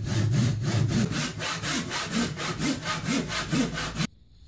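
Japanese-style pull saw cutting through a softwood board, in fast, even strokes. The sawing stops abruptly about four seconds in.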